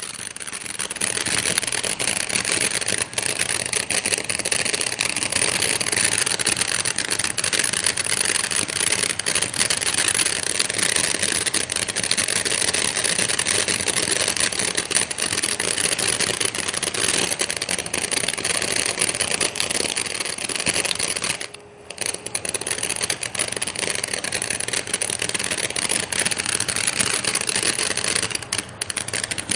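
A small ground firework crackling and popping without a break, a dense rapid patter of tiny pops, falling away briefly about 21 seconds in before picking up again.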